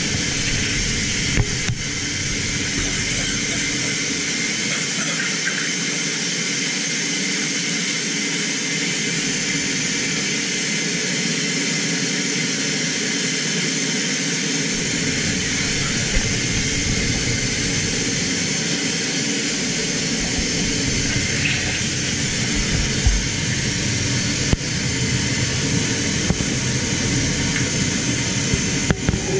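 Steady loud rush of air through a hyperbaric chamber's vents as the chamber is decompressed, the cabin fogging as the pressure drops. A deeper rumble joins the hiss about halfway through.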